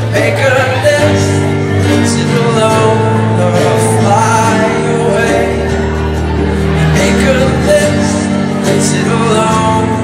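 Live band music with singing: acoustic guitar, mandolin, keyboard and hand drum playing a song.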